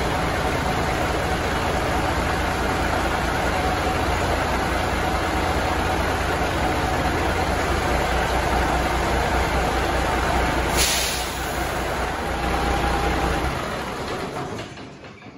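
A machine running steadily and loudly, with a short hiss about eleven seconds in; the sound dies away near the end.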